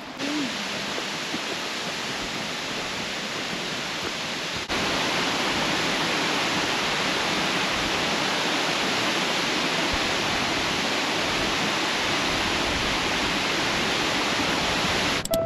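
Tamasudare Falls, a single tall waterfall dropping about 63 m, pouring with a steady, even rushing hiss. The rush jumps louder about four and a half seconds in.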